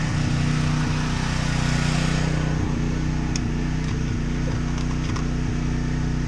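Generator engine running steadily, a constant low hum, with a couple of faint clicks.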